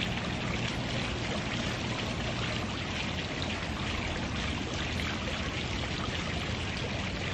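Steady outdoor background noise: an even hiss with a low hum beneath it, unchanging throughout.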